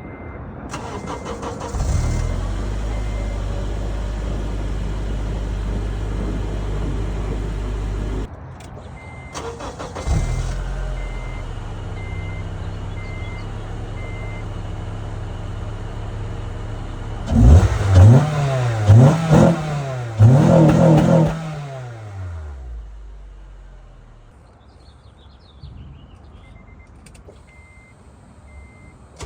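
2004 Acura TSX's 2.4-litre four-cylinder idling through a Tsudo SP2 cat-back exhaust, with a deep, low note. Past the middle it is revved hard several times in quick succession, each rev rising and dropping back, then it settles and fades. A faint repeating beep sounds over the idle at times.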